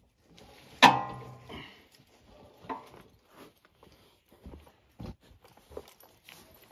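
A sharp metal clank with a brief ringing tail about a second in, followed by scattered light knocks and clicks of hand tools on metal as a generator's handle and wheel kit are bolted on.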